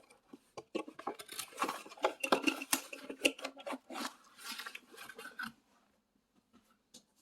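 Hands handling a glass water bottle and its packaging: a quick run of small clinks, taps and rustles that stops about five and a half seconds in.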